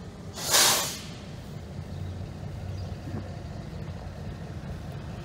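A sharp burst of air hissing from the train's air brakes about half a second in, lasting about half a second, over the steady low rumble of idling diesel locomotives.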